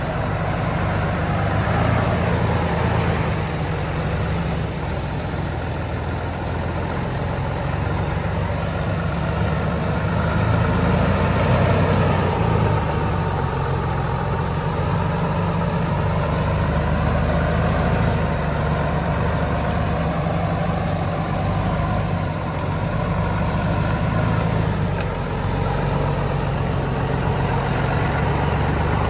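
Heavy truck engine running steadily, a continuous low drone with a faint wavering higher tone over it.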